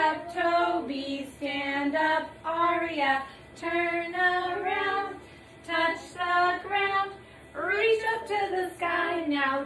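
A woman singing a children's action song in held notes, with young children's voices singing along.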